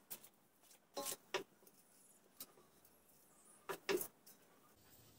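A few short, sharp knocks and rattles from the drum of an idle concrete mixer being handled by hand; the loudest come about a second in and near four seconds in.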